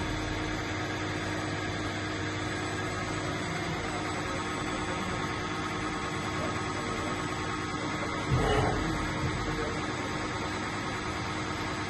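Steady electrical hum with several constant tones, broken by a brief low knock about eight seconds in.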